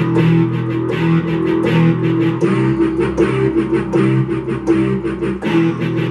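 Yamaha YPG-235 keyboard's overdriven guitar voice playing a rock rhythm: chords struck again and again in a quick, steady chugging pattern.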